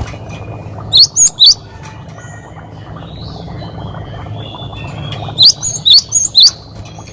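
Cinereous tit (gelatik batu) singing loud, sharp whistled 'wucit' notes. A burst of three comes about a second in, and a run of about five comes near the end. Softer twittering fills the gap between them.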